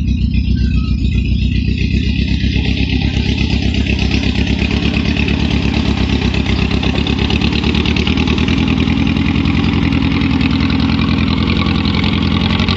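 Engine of a homemade garden tractor running steadily, with an even, rapid beat.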